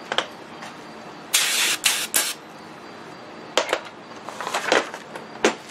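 Short bursts of hissing, like air or spray: three loud ones in quick succession about a second and a half in, then a few shorter, softer ones later.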